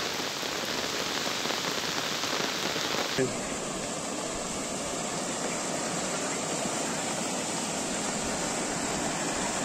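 Steady rush of water: heavy rain and fast-flowing floodwater. About three seconds in there is a brief knock, and after it the water noise changes character.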